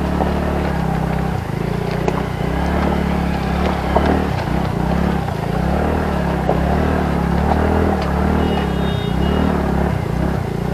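Motorcycle engine running at low, shifting revs while riding over rough, rocky ground, with scattered knocks and rattles from the bumps. A brief high tone sounds near the end.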